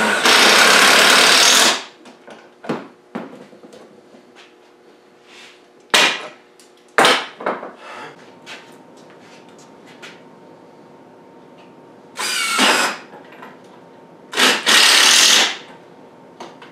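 Cordless impact driver driving screws into oak face-frame joints, in short powered runs. One long run comes at the start, a short one about twelve seconds in, and two more near the end, with a few sharp knocks of wood pieces being set down in between.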